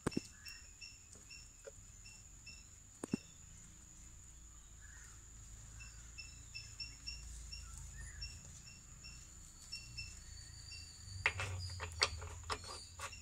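Crickets chirping faintly in a steady repeating rhythm. A sharp click about three seconds in and several clicks near the end come from metal parts being handled as a kick-shaft lock piece is fitted onto the splined kick shaft of a two-stroke motorcycle engine.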